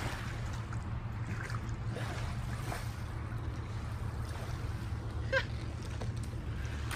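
Steady low rumble of wind on the microphone, with faint distant voices now and then.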